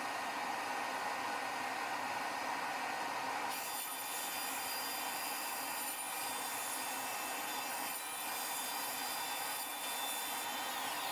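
Grizzly G0555 band saw running with a steady whirring hiss, turning brighter and hissier about three and a half seconds in.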